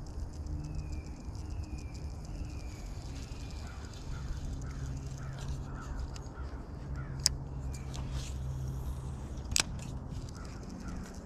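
Spinning reel handled on a creek bank: two sharp clicks, about seven and nine and a half seconds in, over birds calling, with a run of four falling calls in the first few seconds, and a low steady rumble.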